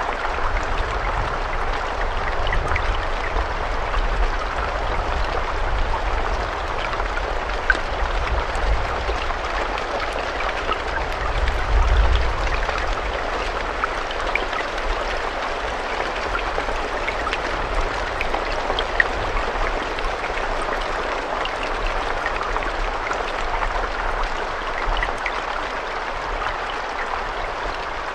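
Steady rainfall, a dense hiss of drops with scattered individual drop ticks over a low rumble that swells briefly partway through.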